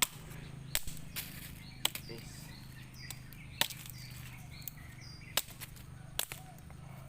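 A scatter of sharp clicks and taps, about seven over a few seconds, over a low steady hum, with several short high chirps in between.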